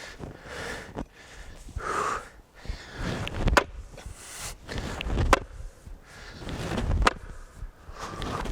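Chopping axe biting into a wooden log, four hard strikes about two seconds apart, with breathing between the swings.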